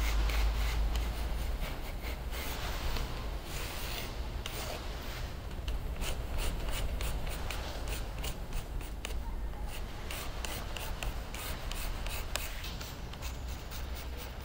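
Coloured pencil scratching across drawing paper in quick, repeated short strokes as a drawing is shaded, over a steady low rumble.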